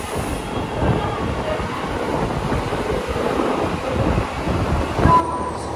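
Train doors and platform screen doors sliding shut at a subway platform over steady station noise, with a few thuds as they close and a louder thud about five seconds in.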